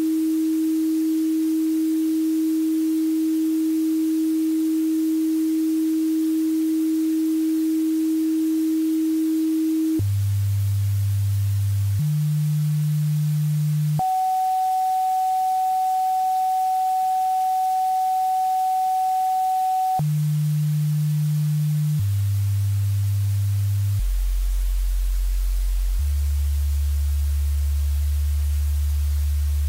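Electronically generated pure sine-wave tones, each held steady and switching abruptly in pitch. A mid-pitched tone holds for about ten seconds. It is followed by deep tones that change every couple of seconds. A higher tone is held for about six seconds in the middle, and very deep hums come near the end.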